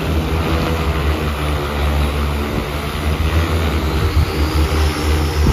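JIYI XC30 agricultural spraying drone hovering low with a full 30-litre tank of water, its rotors giving a loud, steady low drone.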